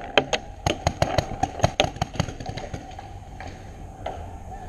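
A rapid run of paintball marker shots, about ten sharp pops at a few per second, stopping about two and a half seconds in.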